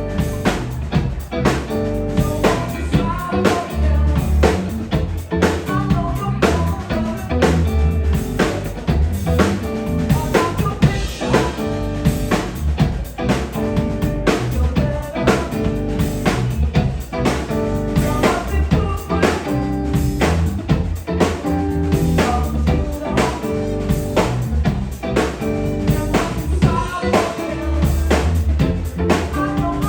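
Live rock band playing an instrumental stretch: a drum kit with snare, rimshots and bass drum keeping a steady, busy beat over electric bass and electric guitar.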